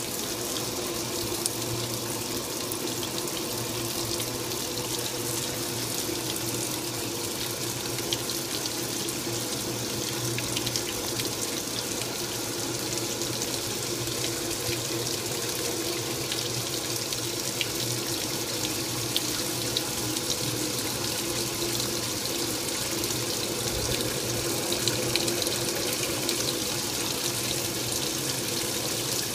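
Top-load washing machine filling: a stream of water pours from the fill inlet into the tub and splashes steadily, with a steady low hum underneath.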